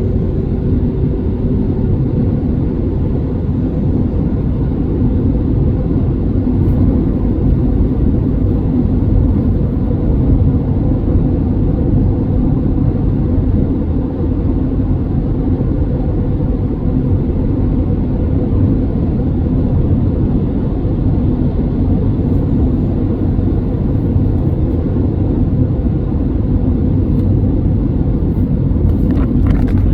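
Steady engine and road rumble heard from inside the cabin of a 2017 Honda CR-V with the 1.5-litre turbo engine as it drives along.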